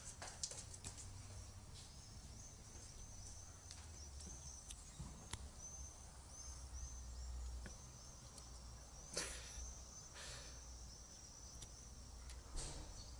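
Faint outdoor ambience: a high, thin chirping repeats steadily throughout over a low rumble, with two brief rustles, one about two-thirds of the way in and one near the end.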